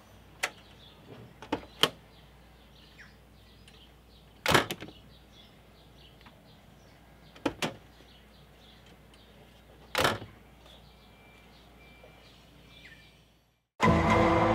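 Land Rover Discovery door being worked, its latch just repaired with a new spring: handle and latch clicks, and the door shut firmly twice, about four and ten seconds in. A short burst of music comes in near the end.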